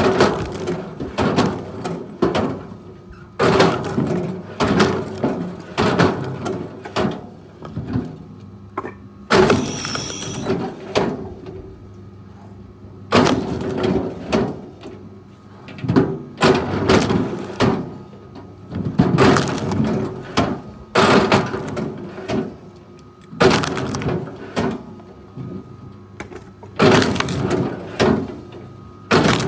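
Wood cracking and splintering in repeated bursts every second or two as a heavy machine breaks it, over the steady hum of the machine.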